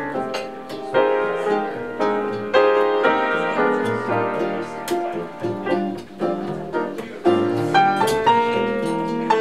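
Jazz piano played on an upright piano: chords and melody notes, with several loud struck chords.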